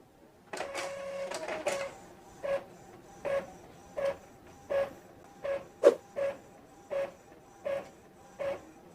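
Epson EcoTank L3110 inkjet printer running a black-and-white copy. A steady mechanical whirr starts about half a second in, then the print head makes regular passes about every three-quarters of a second, with one sharp click about two-thirds of the way through.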